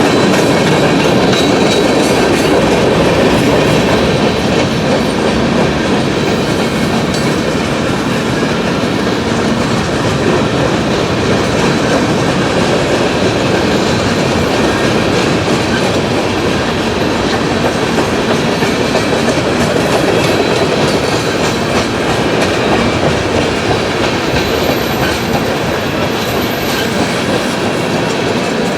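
Freight cars of a CSX manifest train rolling past: a loud, steady rumble of steel wheels on the rails.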